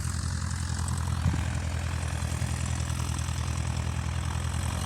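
Jet airliner engines running as it taxis: a steady low rumble with a faint hiss above it.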